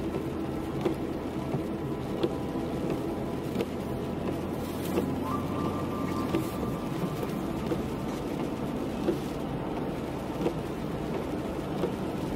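Car driving on a wet road in light rain, heard from inside the cabin: steady engine and tyre noise with occasional small ticks.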